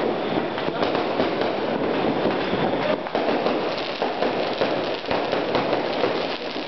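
Fireworks and firecrackers going off all over at once, a dense unbroken crackle of many small pops and bangs at a steady level, with no single big boom.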